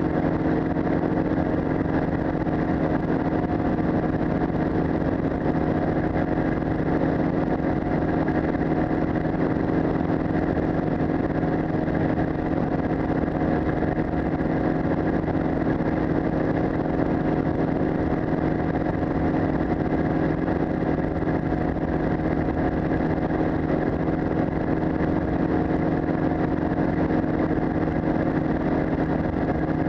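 Powered parachute's engine and propeller running steadily at cruise power in level flight, heard close up from the aircraft's frame; the pitch holds constant throughout.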